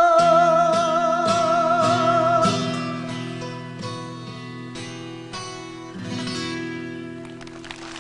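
End of a live ballad: a long held note with vibrato fades out about two and a half seconds in. Slow acoustic guitar chords are struck one at a time and left to ring. Applause begins near the end.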